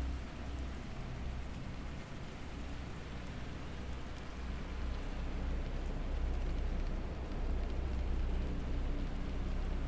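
Rain sounds over a bed of low, steady humming tones, the backing of a binaural beats meditation track.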